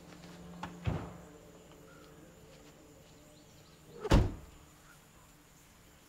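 Camper van doors shutting: a softer thump about a second in, as a low steady hum stops, then a loud heavy slam about four seconds in.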